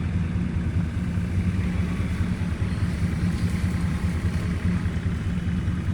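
Tractor engine running steadily, a low even hum with no change in speed.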